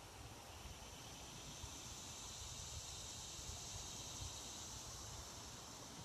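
Faint, steady, high-pitched buzz of an outdoor insect chorus, with a low rumble underneath.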